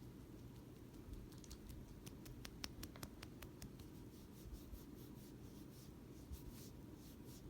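Faint small clicks and light scratching, with a quick run of ticks between about one and four seconds in and softer scattered ticks after, over a low steady room rumble.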